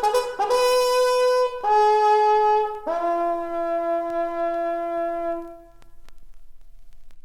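A solo brass horn sounding a call: a quick run of notes, then three held notes stepping down, the last one long and dying away.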